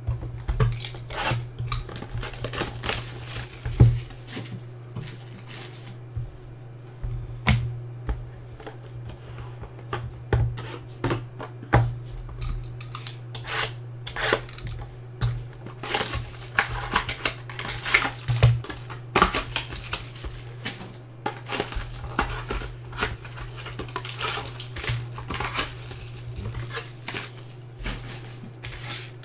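Hands opening a sealed cardboard box of trading cards: a blade cutting the seal, cardboard tapping and scraping, and foil-wrapped packs clacking and crinkling as they are taken out. Many short clicks and knocks, over a steady low hum.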